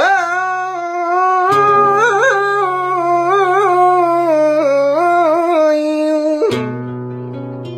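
Flamenco singer holding one long melismatic sung note for about six and a half seconds, wavering through quick ornaments, over flamenco guitar chords; the voice stops near the end and the guitar carries on.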